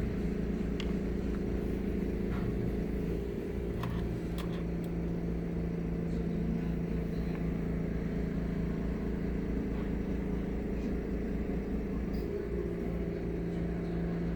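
Steady machine hum with a low rumble and a constant pitch, with a few faint clicks.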